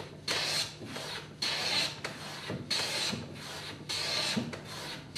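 Metal hand bench plane cutting shavings from a timber edge in repeated strokes, about one a second, each a hissing, scraping cut. The strokes are evening up a high side of the edge to bring it level with a marking-gauge line.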